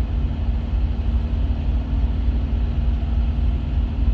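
Truck engine idling, a steady low rumble with a constant hum.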